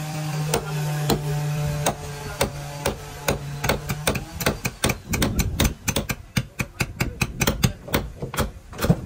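Hand hammering on a wooden boat build: repeated sharp hammer blows, getting quicker and denser after about four seconds, with several strikes a second. A steady low hum runs under the first four seconds and then stops.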